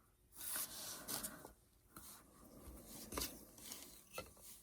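Faint rustling and rubbing, with a few light clicks and taps, as small wooden craft pieces are handled and pressed into place.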